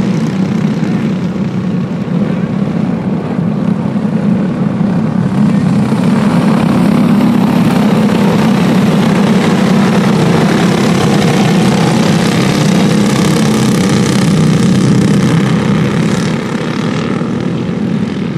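A pack of racing go-kart engines running hard around the oval, a steady buzzing drone that gets louder as the karts pass close, about halfway through, and eases a little near the end.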